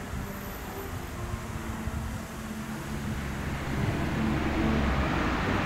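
A wind band practising in a nearby hall, heard from outdoors, holding long sustained notes. Under it a low rumble grows louder from about halfway through.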